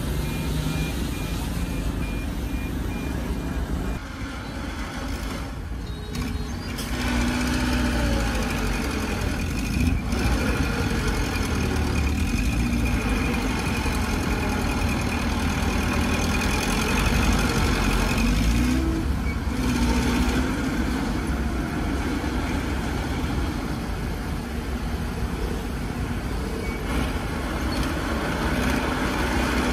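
Heavy diesel engines of a bulldozer and dump trucks working continuously, the engine pitch rising and falling several times as they take load. A reversing alarm beeps for the first few seconds.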